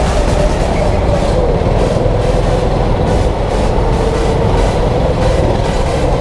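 Rental go-kart running at speed around the track, its motor giving a steady whine that dips slightly in pitch and comes back up, over a heavy rumble from the chassis.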